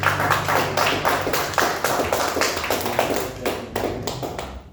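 Audience applauding at the end of a song, a scattering of individual claps that thins out and fades near the end, with the last acoustic guitar chord still ringing under it at first.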